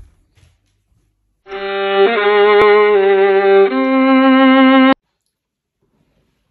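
Music: a short violin phrase of a few held notes, changing note twice and stepping up in pitch near the end, then cutting off abruptly.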